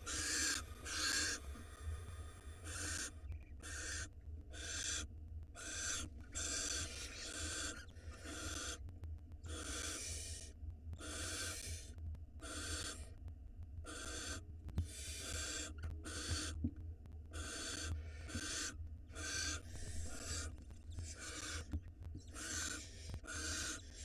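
Barn owl nestlings giving rasping hiss calls, one after another at about one a second: the food-begging calls of barn owl chicks. A steady low hum runs underneath.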